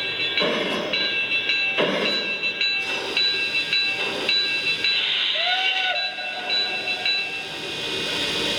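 Onboard digital sound system of a Lionel Legacy Pennsylvania Railroad H10 2-8-0 model steam locomotive playing steam exhaust chuffs, slow at about one every second and a half. Several steady high ringing tones sound over them, breaking off and starting again, and a short rising tone comes about five seconds in.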